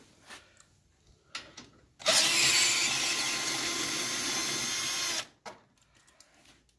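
Cordless drill spinning an 8 mm socket on an extension to back out a bolt. It runs steadily for about three seconds, loudest as it starts, with a few light clicks before and after.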